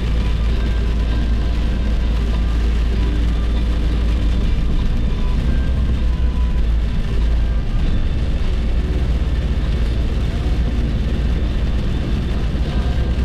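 Steady road and engine noise inside a car cabin at highway speed, a deep rumble that holds even throughout.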